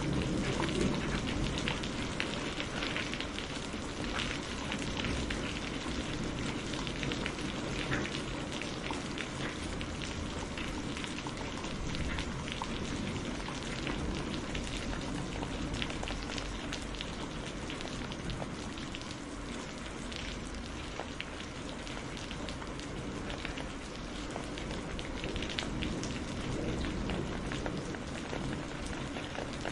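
Heavy rain falling steadily: a constant hiss dotted with many close, sharp drop hits, over a steady low rumble.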